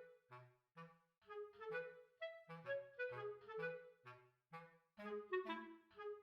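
Background music: a bouncy tune played on clarinet-like woodwind notes over a plucked bass line, in a steady rhythm.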